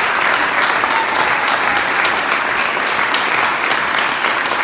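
A room full of people applauding, a steady round of many hands clapping.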